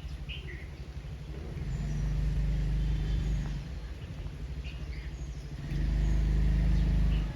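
A motor vehicle's engine rumbling low and steady, growing louder twice for a couple of seconds each, with a few short bird chirps above it.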